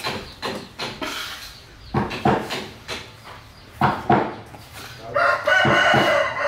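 A rooster crows once, a single long call starting about five seconds in. Before it there are shorter calls and scattered knocks.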